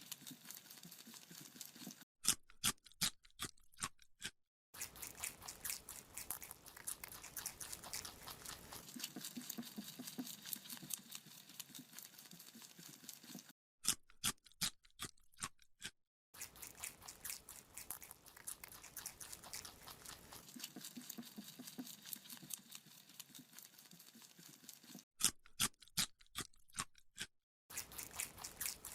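Rabbit chewing a carrot: a fast, steady stream of small crunching nibbles. Three times, about every eleven seconds, it gives way for a couple of seconds to a run of sharper, separate crunches with silence between them.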